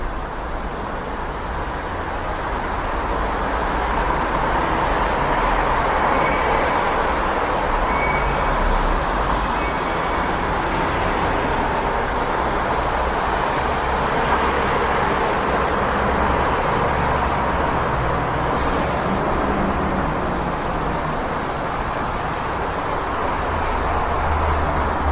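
City street traffic noise: a steady wash of passing vehicles with a low engine rumble underneath, swelling slightly over the first few seconds.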